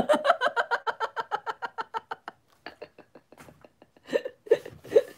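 A woman's voice: a fast run of short pitched vocal pulses, about ten a second, that fades after a couple of seconds, with a few short voice sounds near the end.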